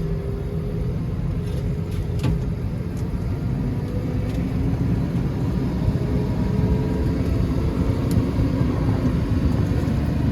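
Tractor engine running steadily, a continuous low drone with a faint pitched hum.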